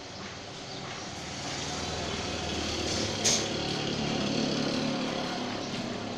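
A motor vehicle engine running, growing louder toward the middle and easing off near the end, with one sharp click a little over three seconds in.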